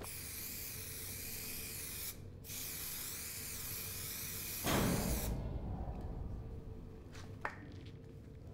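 Pressurised spraying hiss in two long bursts, broken by a short pause about two seconds in, ending in a low whoosh around five seconds in; after that only faint room sound with a single light click.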